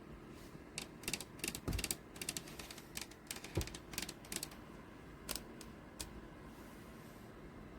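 Irregular run of sharp mechanical clicks and rattles for about five and a half seconds, with two dull knocks among them.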